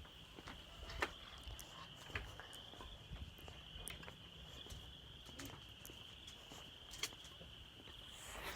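Insects chirring in a steady, faint high-pitched drone, with a few scattered light clicks or taps.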